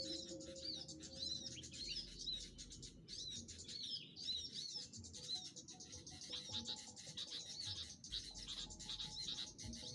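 Small songbirds chirping in quick, repeated bursts of high notes, several calls overlapping.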